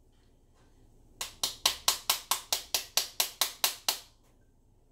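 A spoon smacking the back of a halved pomegranate held over a bowl, knocking the seeds loose: a fast even run of sharp taps, about six a second, starting about a second in and lasting almost three seconds.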